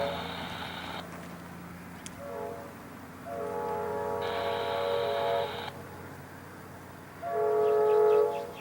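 Diesel locomotive's multi-note air horn sounding a series of blasts for a road crossing: a blast ending about a second in, a short one, a long one, and another loud blast near the end.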